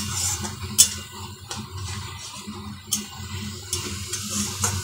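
A spatula stirring and scraping a thick spice paste frying in a wok, knocking sharply against the pan about every second, over a faint sizzle and a steady low hum.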